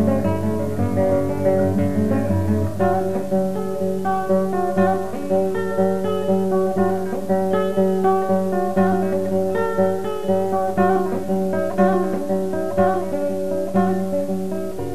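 Background music: acoustic guitar, plucked and strummed in a steady, repeating pattern.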